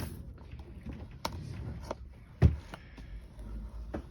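Cardboard box and packaging being handled while it is worked open: a few sharp clicks and taps and one heavier thump about two and a half seconds in.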